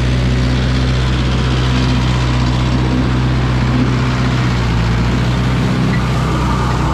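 Large tractor's diesel engine running steadily under load as it pulls a rotary tiller through dry rice stubble, passing close by. A steady low hum with the churning noise of the tiller over it.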